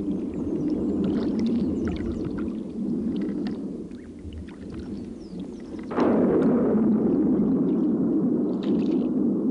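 Water splashing and dripping as a wet fishing net is hauled by hand into a wooden boat, over a steady low rumble. About six seconds in, a louder rushing sound starts suddenly and carries on.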